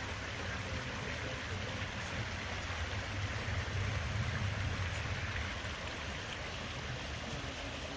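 Steady rushing of water over rocks in a creek.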